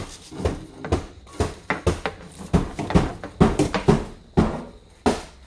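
A quick, irregular run of knocks, thumps and clatters in a small room, about three a second, with sharper, louder strikes about three and a half and five seconds in.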